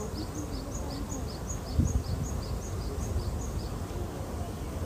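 A small bird repeating a rapid high-pitched two-note chirp, about three a second, stopping about three and a half seconds in. Underneath is a low murmur of voices, with a brief louder low sound just under two seconds in.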